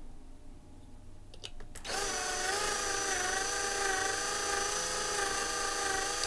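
Small power drill whining steadily as it drills out a rivet on a 1/64 diecast car's metal base, starting about two seconds in, its pitch wavering slightly under load.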